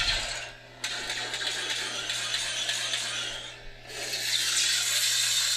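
Lightsaber sound font played by a Proffie sound board through the hilt's small 24 mm speaker: a steady low hum under a dense, crackling hiss. The crackle cuts in sharply about a second in, dips briefly, then swells again near the end.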